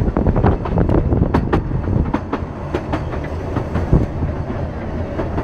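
Steam train carriage running along the line, heard from inside: a steady low rumble of wheels on rail with irregular sharp clicks and knocks from the track and couplings.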